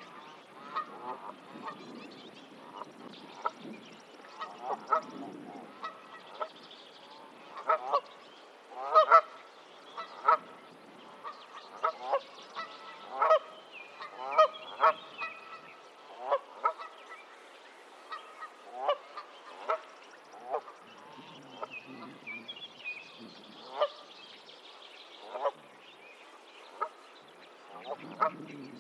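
Canada geese calling in short, repeated honks, irregularly about once a second, some much louder than others.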